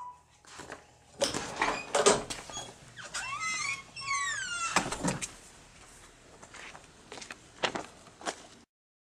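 A door being opened and let swing shut: clicks of the handle and latch, a drawn-out squeak about three seconds in, and a heavy knock as it closes about five seconds in, followed by a few lighter knocks.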